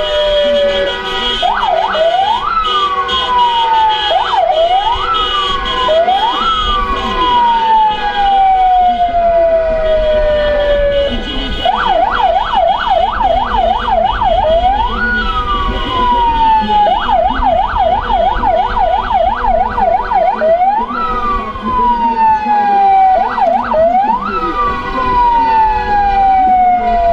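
Electronic vehicle siren cycling through its patterns: long wails that rise quickly and fall slowly, short double whoops, and two stretches of fast yelping at about three cycles a second, the first about twelve seconds in and the second about seventeen seconds in.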